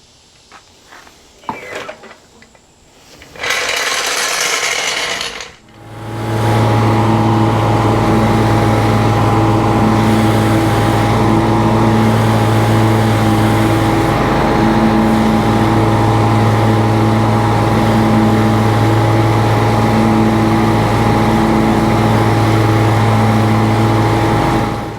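A short loud hiss a few seconds in, then a motor-driven machine starts and runs with a steady low drone, stopping just before the end.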